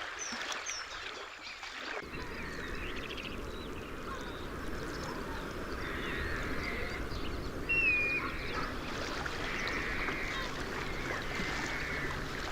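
A soft trickle of water, then from about two seconds in a flock of waterbirds calling, short squawks and whistles over a steady low rush, with one louder clear call near eight seconds.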